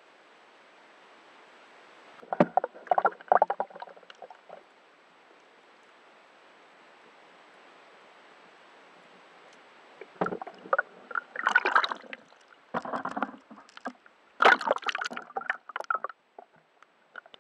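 Lake water sloshing and splashing around a camera dipped underwater, in two irregular clusters: one about two seconds in and a longer one from about ten to sixteen seconds. A faint steady hiss fills the gaps between them.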